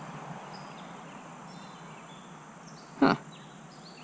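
Quiet creekside background with a few faint, high, short bird chirps. One short, loud burst of noise about three seconds in.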